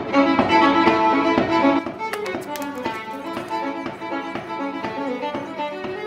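Solo violin playing a quick run of notes. It drops to a lower level about two seconds in and carries on.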